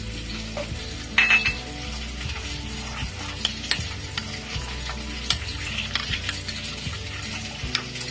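A spoon stirring and scraping a wet spice paste of mustard paste, turmeric and chilli powder with water, with scattered light clinks and a louder scrape about a second in. Fish frying in mustard oil sizzles faintly underneath.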